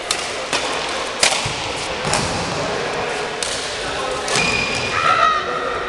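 Badminton rally: rackets striking the shuttlecock in sharp, separate hits, about six of them, spaced half a second to a second apart. A brief high squeak comes about five seconds in.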